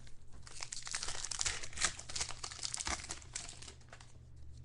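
Trading-card pack wrapper being torn open and crinkled in the hands. The crackling is dense for about three and a half seconds, then dies away.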